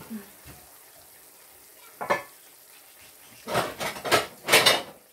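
Beef and vegetables frying quietly in a stainless steel pan, with a single clink of kitchenware about two seconds in and louder clattering of dishes near the end.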